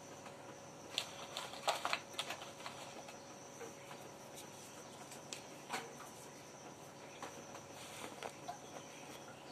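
Baking soda being shaken out over damp towels in a plastic tub: faint scattered ticks and rustles, a cluster of sharper clicks about one to two seconds in, over a faint steady high tone.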